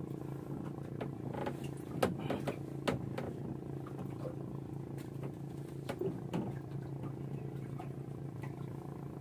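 Steady low hum of a small motor, with a few short knocks and scrapes as a fishing hand line is hauled in hand over hand.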